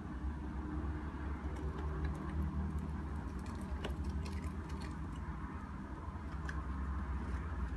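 Scattered light clicks and scratches of a hamster's claws on a toy ladder and foam maze walls as it climbs and crawls, over a steady low rumble.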